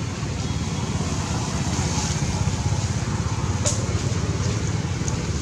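Steady low rumbling background noise with a faint hiss and a few light ticks.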